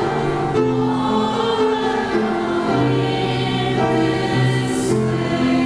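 Congregation singing a hymn verse together, moving in slow held notes.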